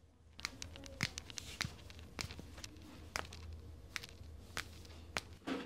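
Scattered sharp clicks and crackles, about fifteen over a few seconds, with soft rustling from hands working a patient's body and clothing on a treatment table during chiropractic manipulation, over a low steady hum.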